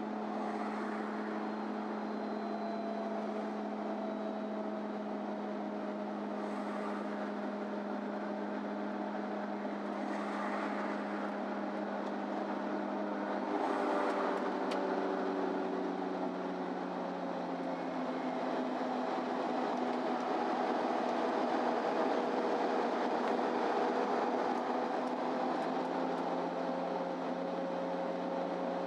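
MAN Lion's City Ü bus heard from inside while driving: engine and drivetrain running with a steady hum and a whine that slowly drifts in pitch. The pitch steps about 13 seconds in, and the sound grows a little louder in the second half.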